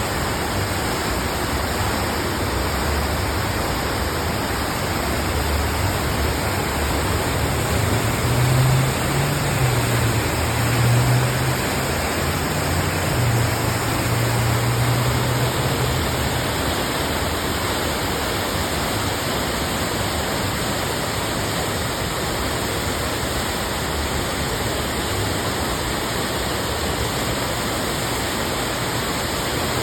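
Wynn Las Vegas artificial waterfall, water pouring and splashing in a steady rush. A low rumble rises and fades between about six and sixteen seconds in.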